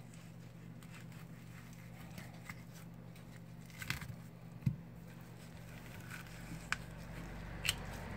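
Knife cutting and scraping meat off a bluefin tuna collar's bones, with scattered sharp clicks and a soft thump about halfway through. A steady low hum runs underneath.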